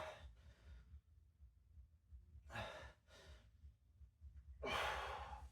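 A person breathing hard from exercise effort: short, forceful exhales, then a longer, louder sighing breath out near the end.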